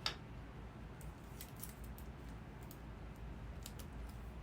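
Faint, scattered light clicks and taps of hands working with tape while assembling a gift basket, about a dozen small ticks spread unevenly, over a low steady hum.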